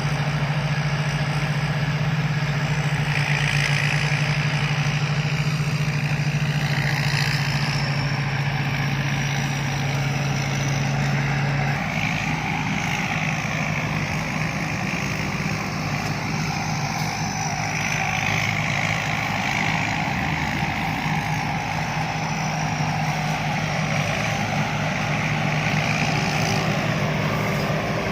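Rice combine harvester's diesel engine running steadily, with machinery noise around it. About twelve seconds in, the engine's tone shifts and drops slightly.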